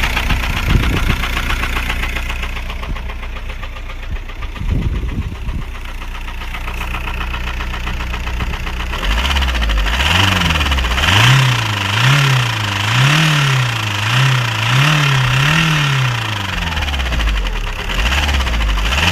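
Volkswagen Golf 4's 1.9 TDI four-cylinder diesel (AJM) running with a knock, the sign of a failed connecting-rod bearing. It idles steadily, then about halfway through is revved up and down about seven times, roughly once a second, before dropping back to idle near the end.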